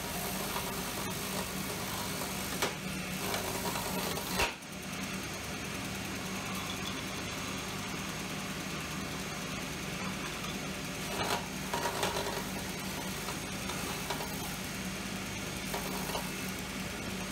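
Bench belt sander running with a steady hum while a pen blank held in a squaring jig is pressed against the belt to sand its end flush with the tube. A couple of sharp knocks come in the first five seconds, and the sanding grows louder and harsher for about a second some eleven seconds in.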